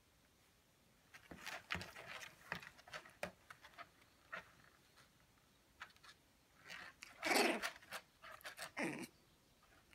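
Shiba Inu puppies about three weeks old playing together: scattered short pants, snuffles and small grunts, loudest a little after seven seconds in and again near nine seconds.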